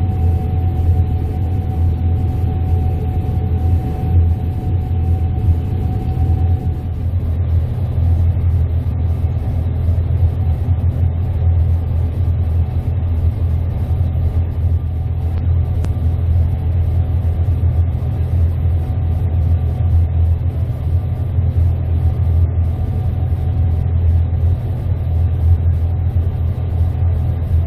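Gleaner S98 combine harvester running steadily while cutting wheat, a deep low engine drone. A faint steady whine over it fades out about seven seconds in.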